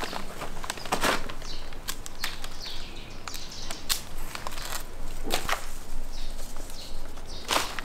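Leafy nandina branches rustling and brushing as they are handled, with sharp clicks and snaps scattered through.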